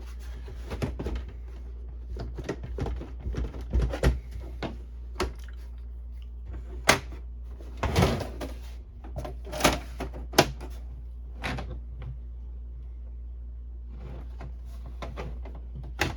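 Irregular clicks, knocks and rattles of a Canon Pixma printer's plastic casing and loose plastic parts being handled and pried apart, with a few sharper knocks in the middle. Under them runs the steady low hum of a dehumidifier.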